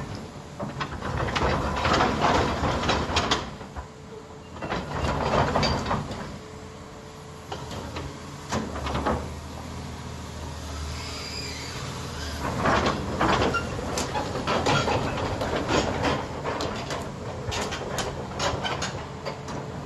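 Komatsu PC450-8 hydraulic excavator working: its diesel engine drones steadily under repeated bursts of scraping and clattering, with a brief hiss in the middle.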